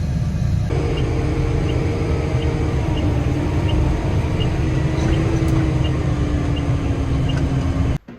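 Combine harvester running: a steady low machinery drone with a whine that slowly falls in pitch, and a faint beep repeating about one and a half times a second. The sound cuts off abruptly near the end.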